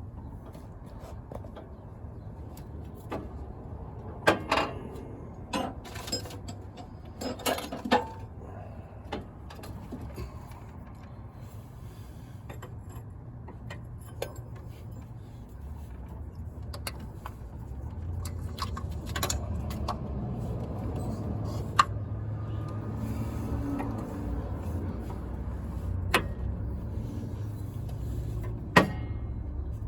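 Scattered metallic clinks and knocks of hand tools and loose parts being handled while working on the engine, a cluster of them early and single sharp ones later, over a steady low rumble that gets louder about eighteen seconds in.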